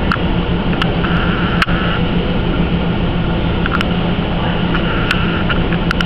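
Steady loud background hiss with a low hum, broken by several sharp clicks, the loudest about one and a half seconds in.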